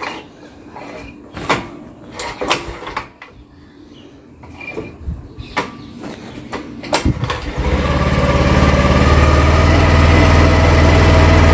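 Scooter being kick-started: a few sharp clacks from the kick lever, then about seven and a half seconds in the engine catches and settles into a steady idle.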